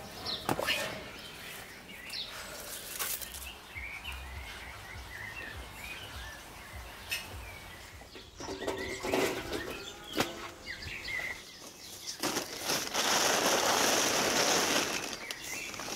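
A blue plastic tarp crackling and rustling loudly as it is pulled and gathered by hand, for about three seconds near the end. Before it comes a brief rush as mulberries are tipped from a metal basin, and wild birds chirp throughout.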